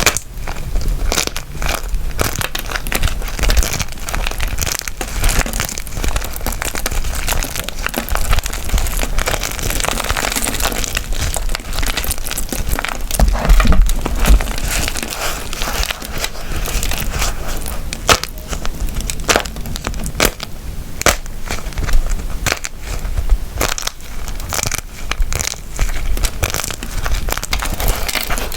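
Wax being squeezed and crushed close to the microphone: a steady run of dense, irregular crackling and crunching with sharp little clicks.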